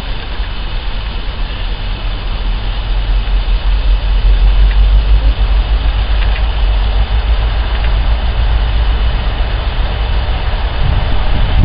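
Class 60 diesel locomotive hauling a train of tank wagons, its engine running under power with a low, steady rumble that grows louder as it approaches.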